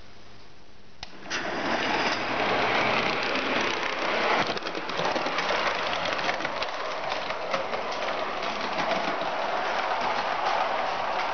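Model Sydney O class trams running along the layout track: a steady mechanical whirring rattle of motor, gearing and wheels on rail, with many fine clicks, starting about a second in.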